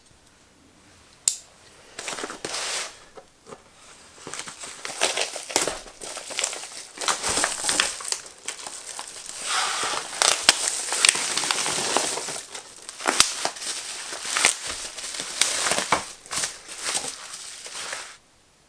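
Packaging being opened and handled: irregular crinkling and rustling with a few sharp clicks, stopping suddenly near the end.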